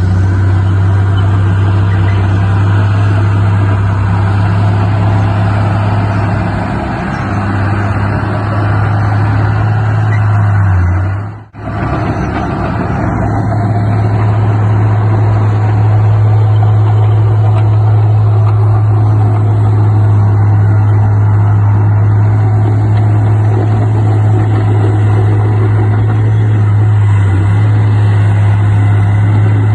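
Heavy diesel engine running steadily under load, a strong low hum, with a brief dropout about a third of the way through.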